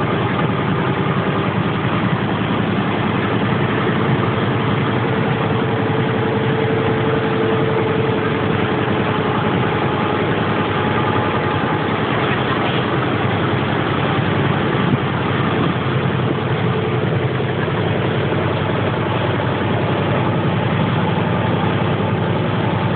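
Engine of a small canopied passenger boat running steadily as it cruises under way.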